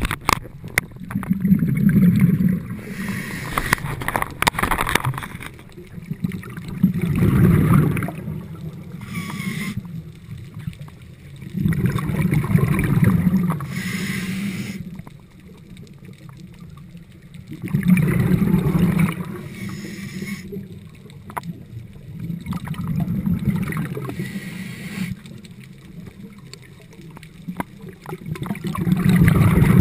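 A scuba diver breathing through a regulator underwater: a hiss on each inhale and a louder bubbling rush of exhaled air, repeating about every five or six seconds.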